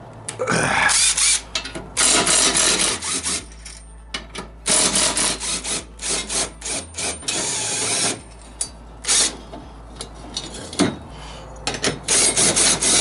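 A 14 mm wrench working the blade bolts of a Honda push mower's mulching blades: bursts of rasping, clicking metal noise, on and off, each lasting about a second.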